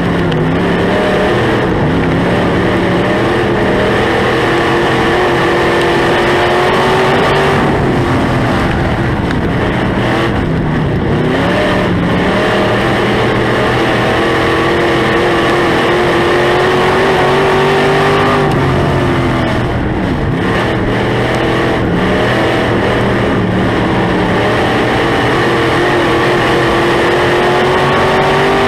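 Onboard sound of a dirt-track Sport Mod race car's V8 engine racing at full throttle, its note climbing slowly and steadily, dropping sharply about two-thirds of the way through as the driver lifts, then climbing again.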